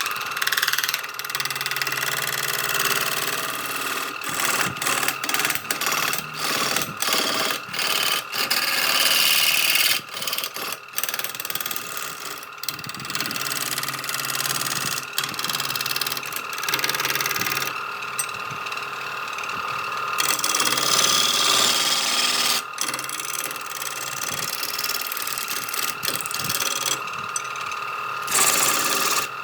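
An electric power tool's motor running at a steady high whine while it works wood. The level dips and surges unevenly as the tool bites into and eases off the workpiece.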